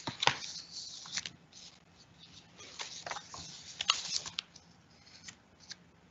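Faint scattered clicks and rustles, the sharpest just after the start and a cluster about four seconds in, over a faint low hum.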